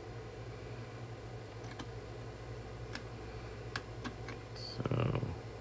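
Scattered light clicks and ticks from a trimmer pot being adjusted inside a B&K 3010 function generator, over a steady low hum.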